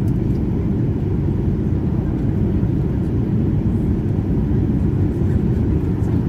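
Steady low cabin rumble of a Boeing 737-800 taxiing after landing, its CFM56-7B engines at idle.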